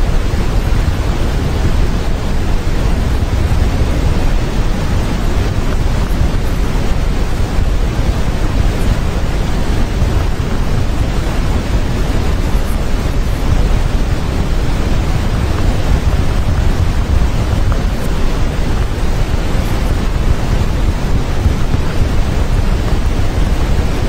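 Steady white noise serving as the masking track of a subliminal audio file: a constant, unchanging hiss, heavier in the low end.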